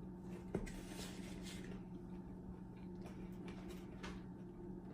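Faint mouth sounds of someone chewing pan-fried pork pot stickers, over a steady low electrical hum, with one sharp click about half a second in.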